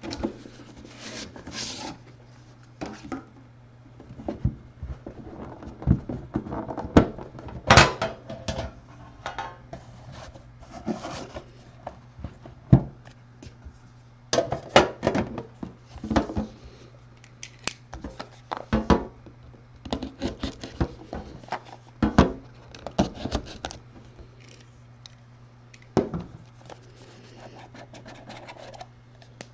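Hands unpacking a trading-card box: cardboard boxes and a metal tin with a foam insert scraping, sliding, tapping and clicking against each other in irregular bursts. A low steady hum runs underneath.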